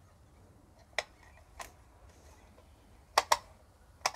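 Sharp plastic clicks from the line-feed spool head of a Parkside 20V cordless grass trimmer as its button is pressed and the spool steps round: one click about a second in, a fainter one shortly after, and a quick double click near the end.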